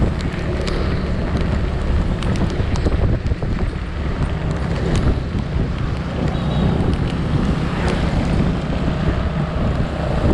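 Wind buffeting the microphone while riding an automatic scooter, over the steady low rumble of the engine and road, with scattered light ticks.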